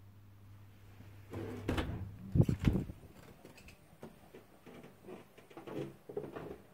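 An interior door opened with a clatter and two heavy thumps, followed by fainter knocks of footsteps on a carpeted hallway floor.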